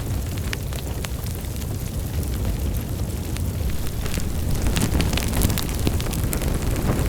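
Wood fire burning in a fireplace: a steady low roar of flames with frequent sharp crackles and pops, the crackling growing busier about four seconds in.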